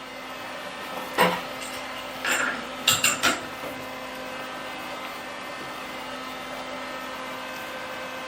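A few sharp metal clanks and clinks as steel tools and the workpiece are handled at the milling machine, about a second in and in a quick cluster around three seconds, over a steady low machine hum.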